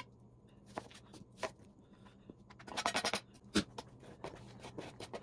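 Chef's knife on a plastic cutting board cutting onion: a few scattered knocks, a short quick run of strokes about 3 s in, then the blade scraping across the board as diced onion is swept off onto a plate.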